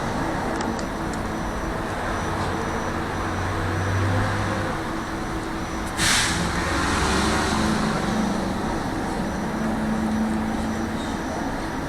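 Tram running along its line, heard from inside the car: a steady rumble with a low hum, and a short hiss about six seconds in.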